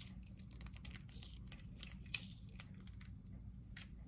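Faint, irregular light clicks and taps of kitchen utensils and containers being handled, with one sharper click about two seconds in.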